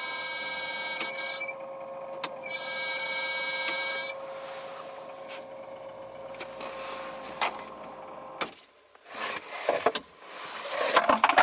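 Old car heater blower fan running with a high whistling whine made of several steady tones. The whistle is the fault it is about to be replaced for. Its upper tones drop out for about a second and return, then it runs quieter from about four seconds in and stops at about eight and a half seconds, followed by clattering handling noises.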